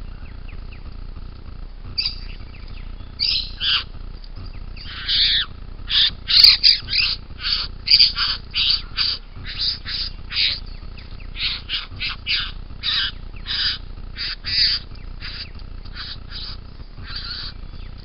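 Satin bowerbird giving a long run of short calls, two to three a second at its busiest, starting about two seconds in and thinning out near the end.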